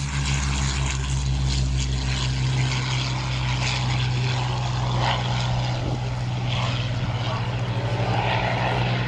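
Rolls-Royce Merlin V12 piston aero engine of a Hawker Sea Hurricane Ib running steadily with an even, low drone and propeller noise; the deepest part of the sound drops away about halfway through.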